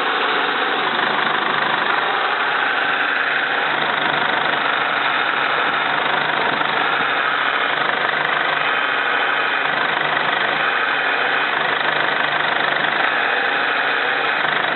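Hydraulic power steering pump of a Mercedes Sprinter / VW LT van humming steadily over the running engine, a sign the pump is worn out.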